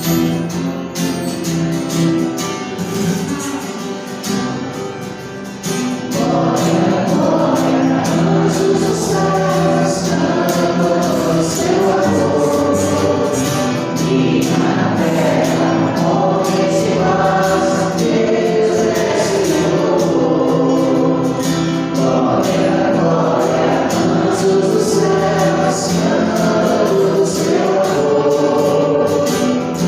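Gospel music: a short instrumental passage, then a choir of voices comes in about six seconds in and sings over the accompaniment.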